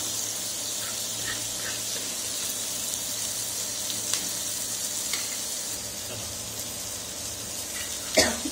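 Masala-coated fish shallow-frying in oil on a flat nonstick tava with a steady sizzle, while a flat spatula presses and shifts the fish. A short, louder scrape or knock comes near the end.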